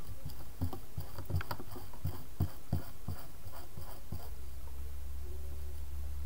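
Foam sponge brush dabbing white acrylic paint through a plastic stencil onto paper: a run of soft, irregular taps, about three a second, that stops about four seconds in.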